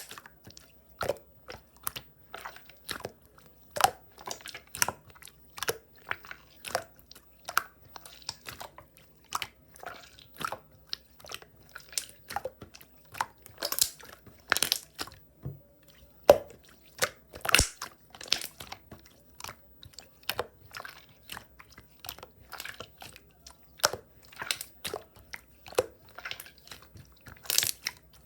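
Clear slime being pressed and worked by hand, giving off crisp, irregular clicks and pops, a few a second, some louder than the rest.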